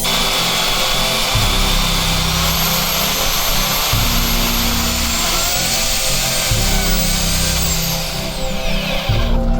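Electric chainsaw on a chainsaw mill, running at full speed with a steady high hiss and whine. About eight seconds in, its whine falls steeply in pitch as it winds down. Background music plays underneath.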